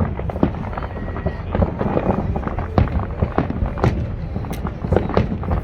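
Fireworks going off: a rapid, irregular series of sharp bangs and crackles over a steady low rumble.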